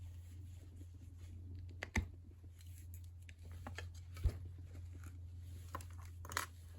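Pliers cutting through steel piano wire: two sharp clicks about two seconds apart, with smaller handling ticks, over a low steady hum.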